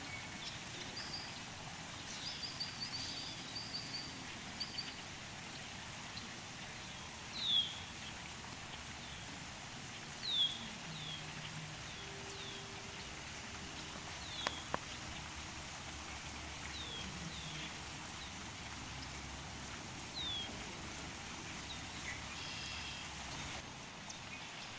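Small birds chirping: short, high, downward-sliding chirps every few seconds, with a quick run of high notes in the first few seconds, over a steady background hiss.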